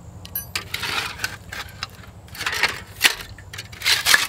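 Handling noise as an MSR Whisperlite stove and its fuel bottle are picked up and turned around on a concrete slab: a few clinks of the stove's wire legs and scrapes, with the foil reflector underneath crinkling.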